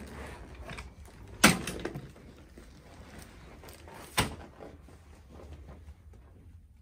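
Two sharp knocks from a chiropractic adjustment, about three seconds apart, the first much louder, with soft rustling between them.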